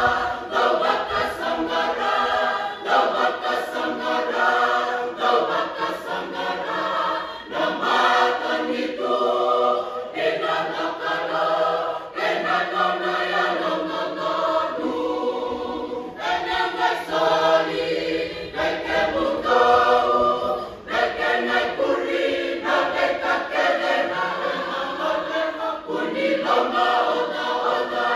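Fijian church choir of women and men singing a hymn in Fijian in parts, unaccompanied, phrase after phrase with short breaks for breath.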